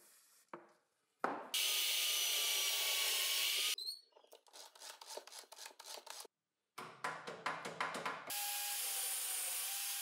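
Power drilling in short takes: a steady run of the drill from about a second and a half in, then a stretch of quick scraping strokes, then the drill running steadily again near the end as the bit bores into plywood.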